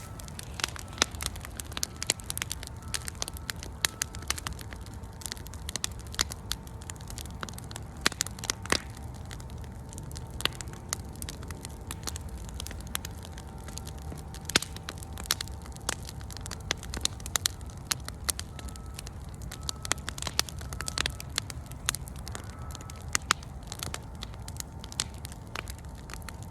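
Campfire burning, crackling with irregular sharp pops over a low, steady rumble of the flames.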